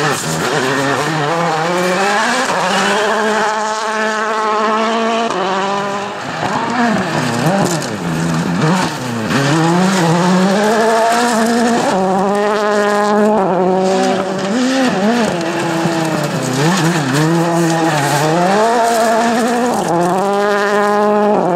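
Rally car engine at full stage speed, its pitch climbing and dropping again and again as it runs up through the gears and lifts off, with sharp drops where the driver shifts or lifts.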